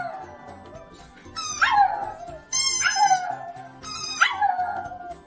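A pug howling in short cries that fall in pitch, each one right after the squeak of a squeaky toy, three or four rounds in a row. Music plays underneath.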